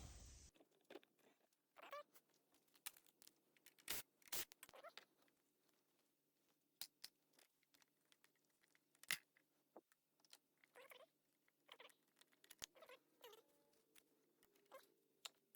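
Near silence, broken by scattered faint clicks and light taps a few times a second at most, with a slightly louder tap about four seconds in and another about nine seconds in.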